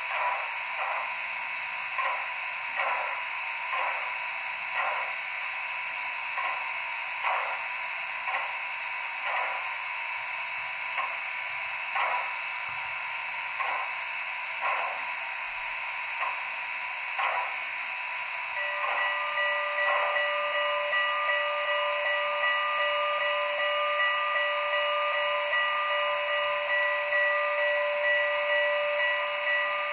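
Digital steam-locomotive sound from an ESU LokSound V5 decoder in an HO-scale model, played through a small speaker: slow exhaust chuffs at about one a second. A little over halfway through, a long multi-tone chime whistle starts and is held to the end while the chuffing goes on.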